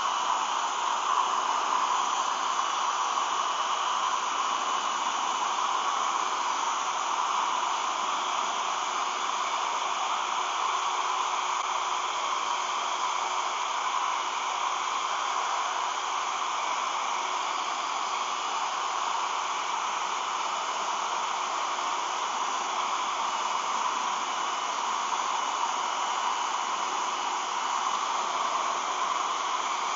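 Hair dryer running steadily, a constant rushing blow with a faint whine, heating clear vinyl film so it can be stretched over a goggle lens.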